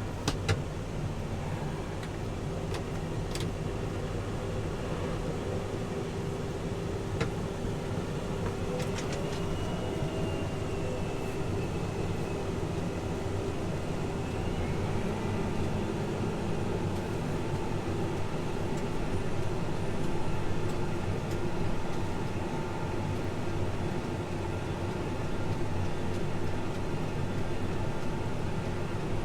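Case IH tractor's diesel engine running steadily, with a few sharp clicks in the first few seconds.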